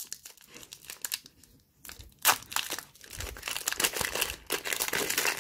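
Foil wrapper of a Pokémon Hidden Fates booster pack crinkling as it is torn open: light crackles at first, one sharp rip a little after two seconds in, then steady dense rustling through the last couple of seconds.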